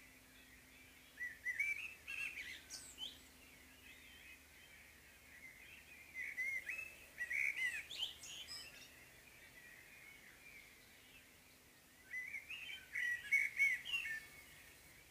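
Common blackbird dawn song: three warbling phrases a few seconds apart, fluty gliding notes with brief higher twittering notes in them.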